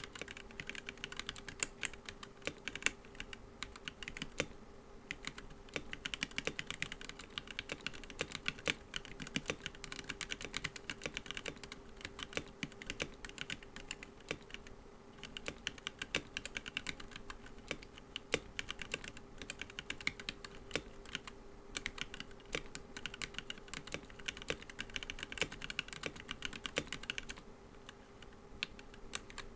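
Fast typing on a Womier K87 mechanical keyboard fitted with POM keycaps: a dense run of key clacks that stops briefly a few times.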